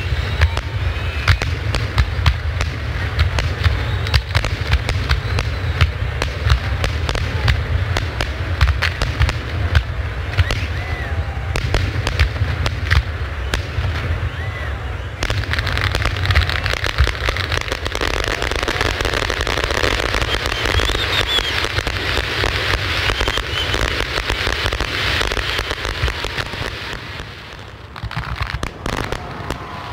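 Aerial fireworks display: a dense, continuous barrage of shells bursting with bangs and crackles over a deep rumble. Near the end it thins to scattered bangs.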